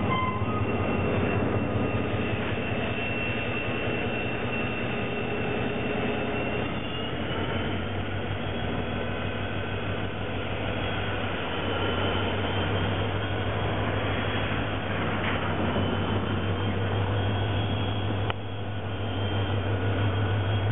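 Irish Rail 071 Class diesel locomotive hauling a freight train of tank and container wagons: its engine drones steadily and grows louder near the end as it comes close. High wheel squeal from the wagons on curved track runs throughout.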